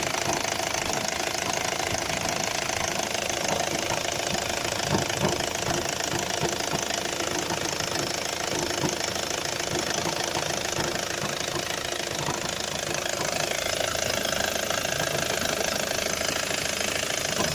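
A 2004 Opel Zafira's engine running at idle with an irregular knocking in it, not strictly periodic. The owner cannot place the knock and links it with the blue smoke the engine has started to give.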